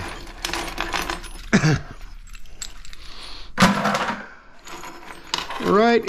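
Small metal magnetron parts clinking and rattling together as they are scooped up and handled by hand on a metal plate, many quick light clicks.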